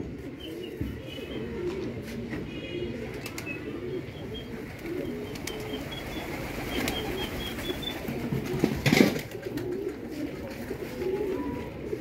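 Domestic pigeons cooing steadily in a low, continuous murmur. About nine seconds in there is a short, loud flurry, typical of wing flapping as pigeons come in to land.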